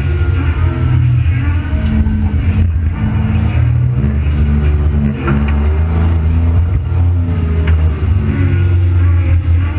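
Supercharged V6 engine of a Holden Gemini heard from inside the cabin under hard acceleration, its revs rising and dropping several times as it is driven up the course.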